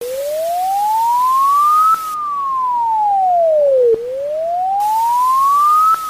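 Emergency alert siren tone: a single pure electronic tone wailing up and down, rising for about two seconds and falling for about two, in a steady four-second cycle.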